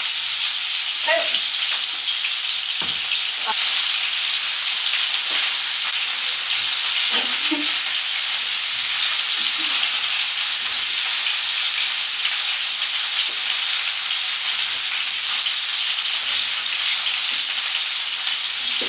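Chicken pieces frying in a pan on the stove: a steady sizzle.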